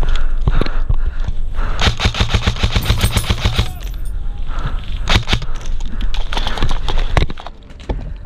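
Airsoft rifle firing: scattered single shots, and a rapid full-auto burst of about a dozen shots a second lasting nearly two seconds, a couple of seconds in.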